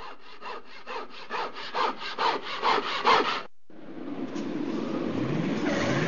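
Rhythmic rasping strokes, about four or five a second, growing louder, then cutting off suddenly about three and a half seconds in; a swelling rushing wash follows, with a low tone gliding upward near the end. All of it is a sound effect in the dance's soundtrack.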